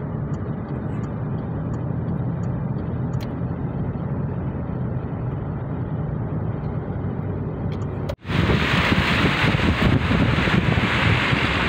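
Steady low rumble of road and engine noise from a car driving along a highway, heard from inside the cabin. About eight seconds in it cuts abruptly to louder, hissing wind and traffic noise at the roadside as a heavy lorry approaches.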